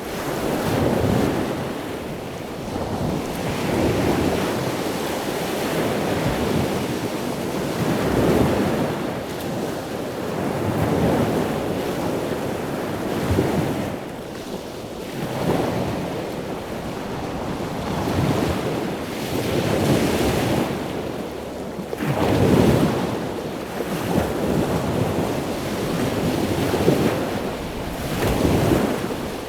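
Ocean surf washing onto a beach, mixed with strong wind rumbling on the microphone, the noise swelling and easing in surges every few seconds.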